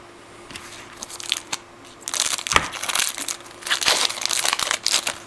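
Foil trading-card pack wrapper crinkling and tearing as it is pulled open by hand, in a run of crackly rustles from about two seconds in.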